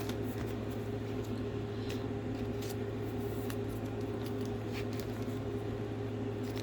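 A steady low hum in the room, with a few faint, short ticks and rustles from Pokémon cards being handled and slid into plastic card sleeves.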